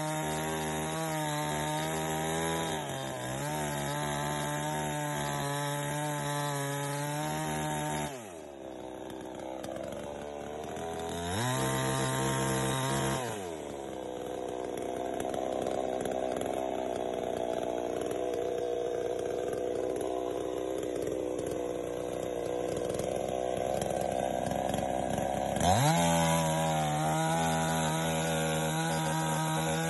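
Gasoline chainsaw cutting through a small tree trunk. Its engine runs at a high steady speed, drops off about eight seconds in, and revs up briefly. It then runs with a lower, rougher note in the cut before climbing back to a high steady speed near the end.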